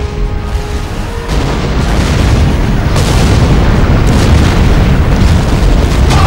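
Sound effects of a naval artillery bombardment: warship guns firing and shells exploding in a continuous run of heavy booms and blasts. It grows louder about a second in, with a sharp crack about halfway through.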